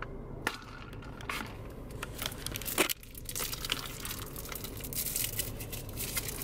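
A plastic drink cup being handled and lifted out of a car's cup holder: crinkles and small clicks throughout, with one sharp knock about three seconds in. A steady low hum runs underneath.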